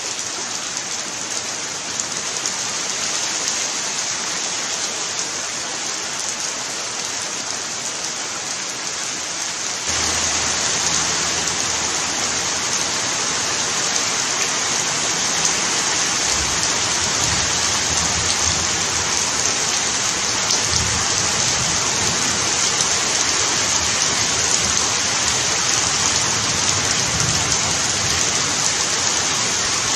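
Heavy rain pouring steadily, with a sudden step up in loudness about ten seconds in and low rumbles through the second half.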